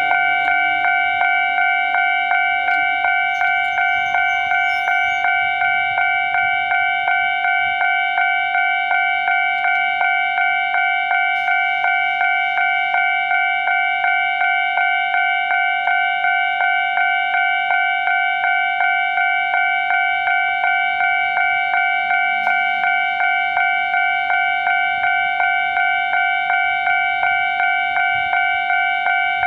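Japanese level-crossing warning alarm ringing with an electronic bell tone in quick, even, repeated dings, faster than usual for such alarms.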